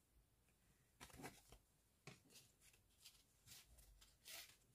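Faint rustles and short scrapes of stiff polaroid photo cards being handled and slid against one another, a string of them starting about a second in.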